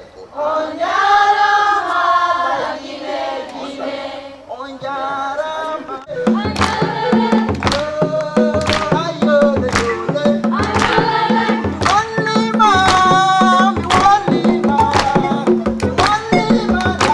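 Singing of a West African song, joined about six seconds in by djembe drums playing a steady, driving rhythm while the singing carries on over them.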